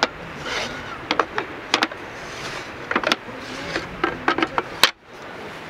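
A series of irregular clicks and light knocks over a steady background hiss, with a sudden brief drop in sound near the end.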